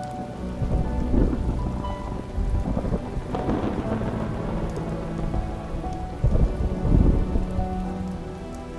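Steady rain with repeated rolls of thunder, the loudest surges about a second in, around three and a half seconds in and near seven seconds, over soft sustained background music.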